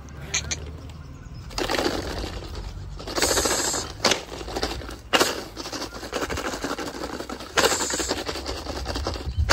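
Dry straw rustling and crunching in uneven bursts as Khillar bullocks nose through and feed on it, with a few sharp clicks. A short chirp near the start.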